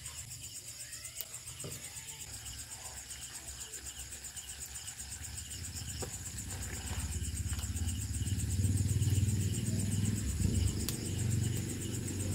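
Crickets chirping steadily: one high trill and another call pulsing about two to three times a second. Under them runs a low rumble that swells for a few seconds in the second half, with a few sharp clicks.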